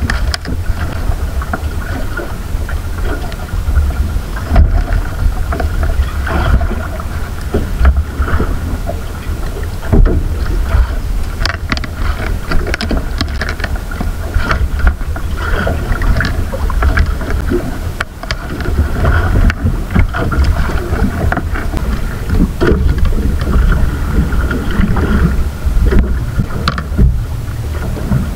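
Wind buffeting the microphone aboard a small fishing boat at sea: a continuous low rumble, with a steady faint hum underneath and irregular small knocks.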